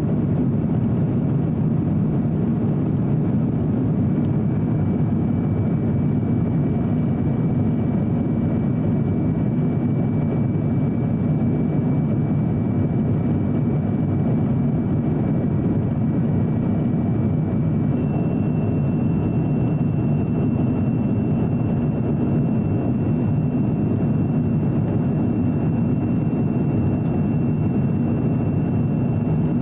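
Airbus A350-900 cabin noise in flight: a steady, deep rush of engine and airflow noise with a thin high whine over it, which steps up slightly in pitch a little past halfway through.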